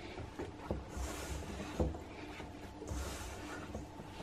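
Hands working a very thick bread dough together in a stainless steel bowl: soft squishing and rustling of flour in slow waves, with a few light knocks.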